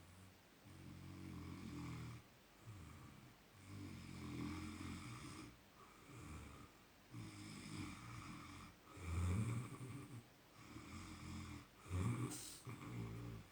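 Snoring: a sleeper snoring in a steady series of snores, about one every second or two, with louder snores about nine and twelve seconds in.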